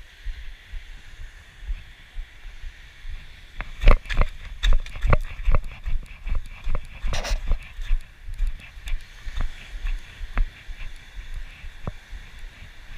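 Footsteps crunching on a pebble beach: a dense run of irregular stone clicks from about three and a half seconds in, thinning to a few scattered clicks later. A low rumble of wind on the microphone runs underneath.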